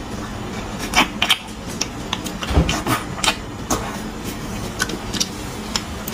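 Close-up eating sounds: a metal spoon scraping marrow out of pieces of braised beef bone, with wet chewing and sucking of the marrow, heard as a string of sharp clicks and smacks. There is a duller thump about two and a half seconds in, over a steady low hum.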